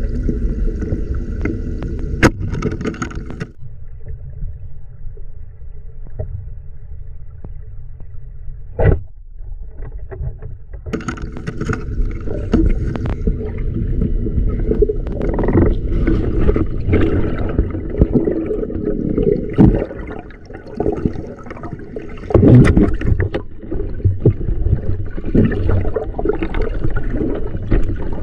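River water sloshing and gurgling close to the microphone, with sharp knocks a little after two seconds and near nine seconds. It goes duller and quieter from about three and a half seconds until about eleven seconds in, then turns rough and busy again.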